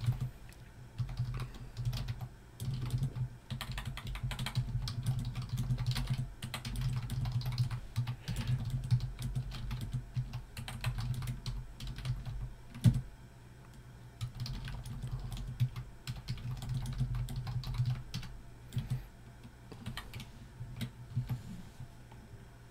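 Typing on a computer keyboard: fast, irregular key clicks in runs with short pauses, and one louder knock about halfway through.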